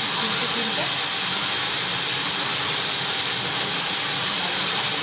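Steady, even hiss of a motorised silk-spinning machine running, drawing yarn from the cocoons.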